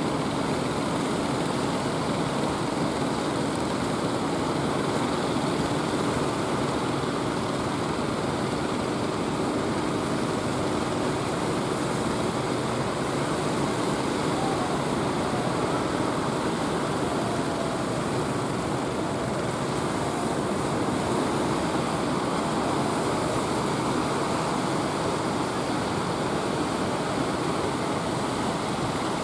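Surf breaking, with the steady drone of a fishing boat's engine running as it heads through the waves.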